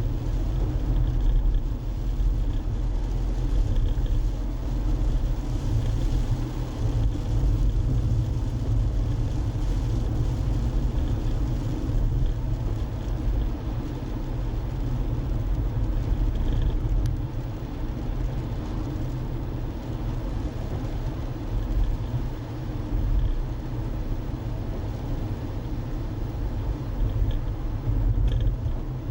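Steady low rumble of a car on the move: engine and tyre road noise heard from inside the car.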